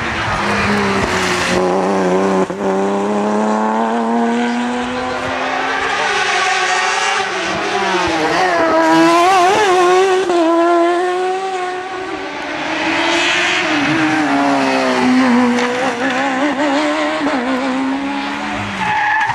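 Hill-climb race cars' engines at full throttle, one car after another: a Porsche Cayman, then a winged silhouette car, then an open-wheel racer. The pitch climbs as each car revs up through a gear and drops as it shifts or lifts for a bend.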